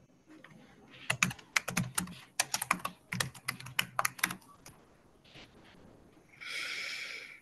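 Typing on a computer keyboard: a quick, uneven run of keystrokes lasting about three and a half seconds, followed near the end by a short hiss.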